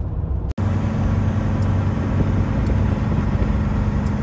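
Truck driving, heard from inside the cab: a steady low drone of engine and road noise with a constant hum. The sound cuts out for an instant about half a second in, then comes back louder.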